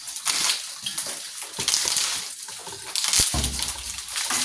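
Stranded copper wire being handled and its split plastic insulation worked off by hand, an irregular rustling and scraping, with a sharp knock about three seconds in.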